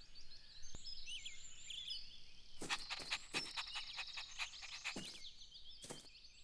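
Faint outdoor cartoon ambience of small birds chirping, with a few quick sharp ticks in the middle.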